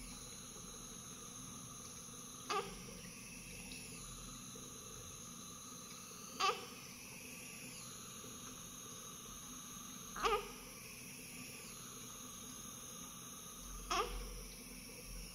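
Newborn baby giving four short whimpers, evenly spaced a few seconds apart, over a steady faint room hum.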